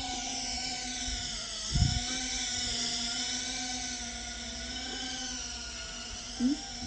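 A GEPRC Phantom micro FPV quadcopter's brushless motors and propellers whine steadily, their pitch drifting up and down with throttle. A short low thump comes about two seconds in.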